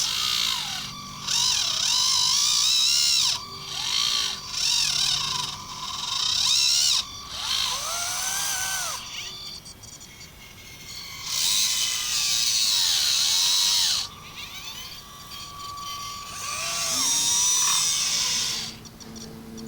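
Small electric motors of radio-controlled construction machine models whining in repeated bursts, each speeding up and slowing down so the pitch rises and falls, with quieter pauses between.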